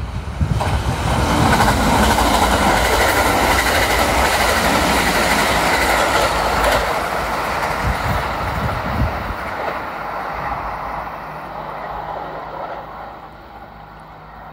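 Kintetsu electric train running past on the rails, loud for several seconds, then fading slowly as it draws away.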